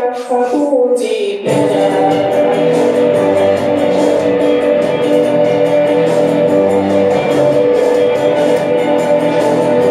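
Recorded music playing for the dancers: a sung line over a thin backing, then about a second and a half in the full track drops in with bass and a steady beat.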